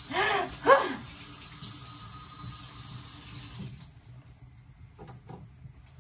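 Kitchen tap running into the sink, shut off abruptly about four seconds in. Near the start, two short, loud vocal cries sound over the water.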